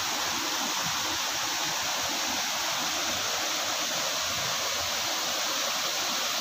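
Steady rush of flowing and falling water, an even hiss without breaks.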